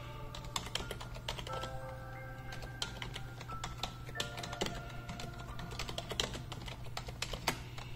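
Computer keyboard typing: quick, irregular keystroke clicks, over background music and a steady low hum.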